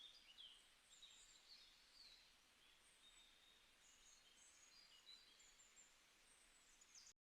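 Faint songbird chirps and short twittering calls over a steady hiss, cutting off abruptly near the end.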